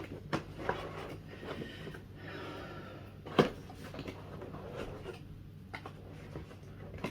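Cardboard compartments of an advent calendar box being tugged and rustled, with scattered small clicks and one sharp knock about three and a half seconds in, as a tightly wedged product is worked at but will not come out.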